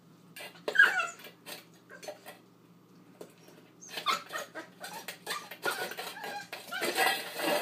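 Husky-poodle puppy nosing and pushing a stainless steel dish across a tile floor: the metal bowl clatters and scrapes, mixed with short puppy whimpers. It comes in two bouts with a lull about a third of the way in, busiest near the end.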